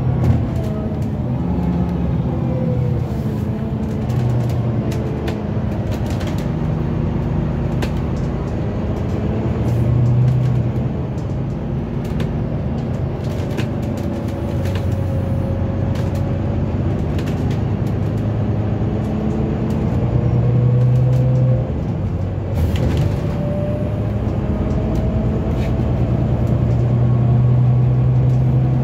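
Dublin Bus double-decker running along the road, heard from inside the passenger saloon: a steady diesel engine hum with a whine that falls and rises as the bus slows and speeds up, and occasional rattles and clicks from the body and fittings.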